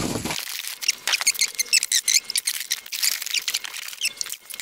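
Cardboard boxes being shifted and rummaged through by hand: a quick, irregular run of light scrapes, clicks and squeaks.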